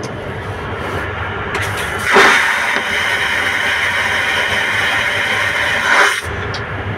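Airbus A330 vacuum toilet flushing: a loud rushing whoosh of air starts about two seconds in, lasts about four seconds and cuts off sharply. It sits over the low steady drone of the airliner's cabin.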